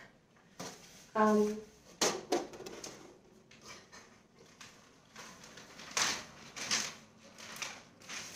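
A short pitched toot, like a voice through a tube, about a second in. Then wrapping paper rustles and crinkles in a string of quick scratchy strokes as it is handled and spread across a glass table.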